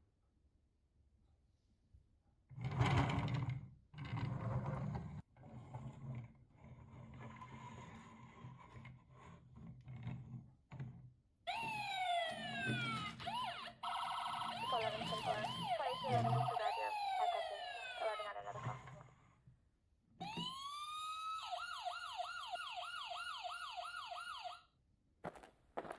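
Knocks and rustling for several seconds, then an electronic police siren: a wail sweeping up and down for about seven seconds, and after a short pause a rising tone that breaks into a fast warbling yelp.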